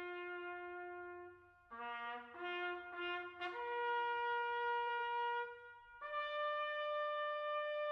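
A solo trumpet plays a slow bugle-call-like melody. It starts on a long held note, plays a few short notes about two seconds in, then moves through two long notes, each higher than the last.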